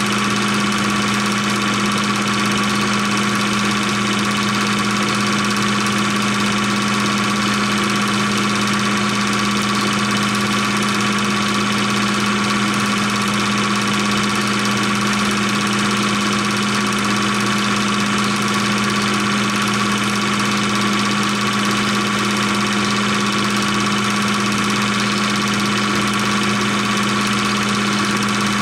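A 16mm film projector running: a steady mechanical whir with a constant hum that does not change.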